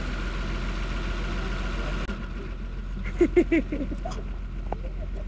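A motor vehicle's engine running at a steady idle, a low even hum. About three seconds in, a few brief high vocal sounds, like a small child's squeals, come over it.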